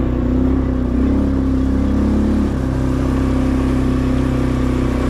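ATV (quad bike) engine running steadily while riding at low speed; its engine note changes about halfway through.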